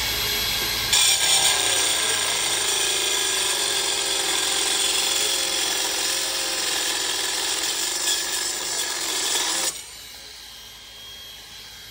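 Cordless cold-cut metal saw cutting through a 1-inch steel bar. A steady, loud cutting noise with a high whine starts about a second in and stops abruptly near the end.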